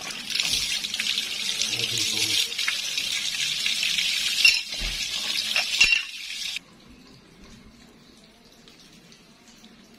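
Water gushing out of an opened water supply pipe where the joint has been undone, splashing down the wall onto the floor, with a couple of sharp knocks about halfway through. The gushing stops suddenly about two-thirds of the way in, leaving a quiet background.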